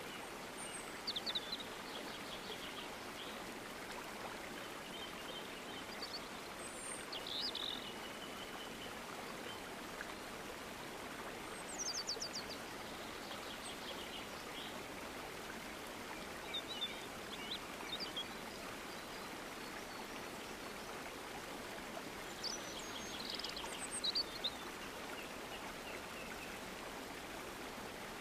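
A steady rush of running water, with short bursts of bird chirps every four to six seconds.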